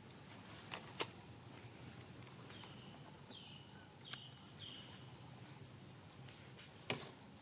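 Four short, high animal chirps in quick succession, each dipping slightly in pitch, over a faint steady background, with a few sharp clicks.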